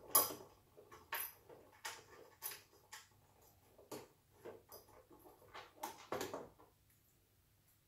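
Small irregular clicks and scrapes of screws and washers being turned in by hand through a metal VESA bracket plate into the back of a monitor, dying away about two-thirds of the way through.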